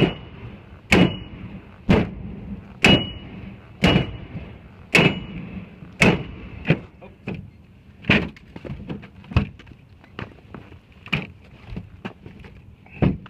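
Flat-head axe hammering a forcible-entry bar held against a steel door, driving a carriage bolt through: sharp metal-on-metal blows about once a second, each with a brief ring. After about six seconds the blows turn lighter and less regular.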